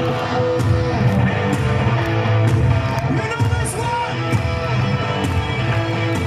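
Live hard rock band playing: a distorted electric guitar riff over drums and bass, recorded from the crowd.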